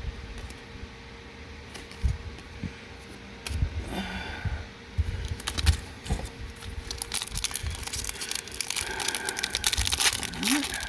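Foil booster pack wrapper crinkling and tearing as it is opened: a few scattered handling taps, then dense crackling from about halfway through.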